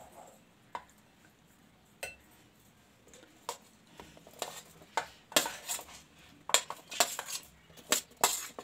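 Metal spoon clinking and scraping on a stainless-steel plate as cut red chillies are pushed off it into a bowl of ground spice mix. A few scattered clinks at first, then a quicker run of sharp clinks in the second half.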